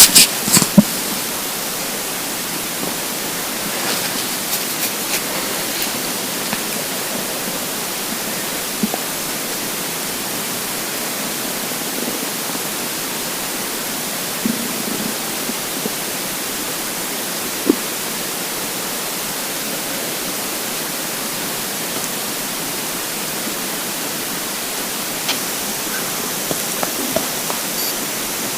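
Steady hiss of background noise, with a few faint, short gurgles from a hungry empty stomach scattered through it. The clearest gurgle comes a little past halfway.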